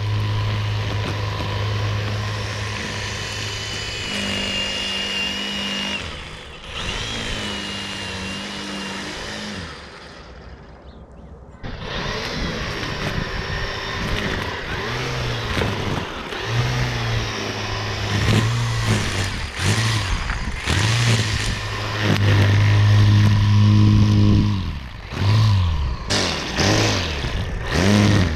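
Cordless EGO 56V power head with a 15-inch string trimmer attachment, its motor and spinning line making a steady hum. The hum eases off about ten seconds in, then comes back in repeated short surges as the trigger is squeezed and released.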